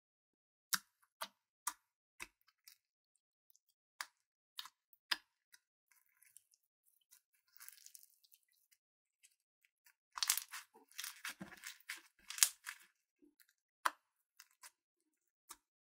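Hands squishing and stretching sticky slime packed with foam beads: separate wet pops and clicks, then a dense run of crunchy crackling a little past the middle before it thins back to single pops.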